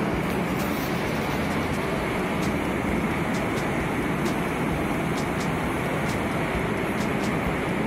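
Steady, dense din of a large exhibition hall, even and unbroken, with a few faint ticks scattered through it.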